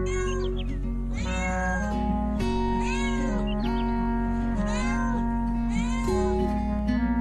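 Kitten meowing about six times in short, arching calls, over background music with held notes.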